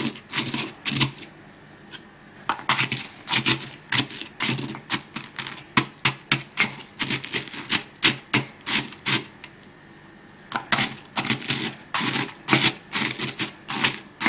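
Wooden pestle crushing dry rusks (biscottes) in a wooden mortar: a rapid run of crunching knocks, several a second, with short pauses about two seconds in and about ten seconds in.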